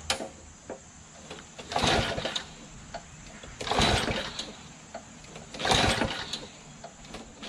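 A push mower's recoil starter rope pulled three times, about two seconds apart, with the small engine turning over each time but not catching: there is no gas in the tank.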